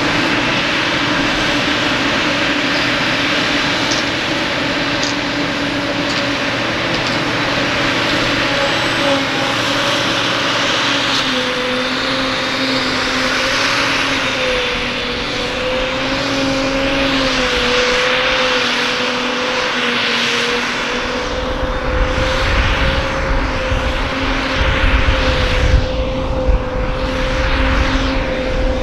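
Forage-harvesting machinery, the Claas Jaguar 940 forage harvester and its tractors, running steadily under load in the field: a constant engine drone with a held whine. A deep rumble joins about three-quarters of the way in.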